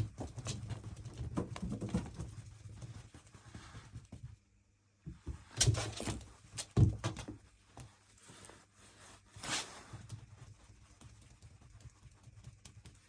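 Irregular thumps, taps and rustling as cats pounce and scramble after a cat teaser wand, with louder thumps about six and seven seconds in.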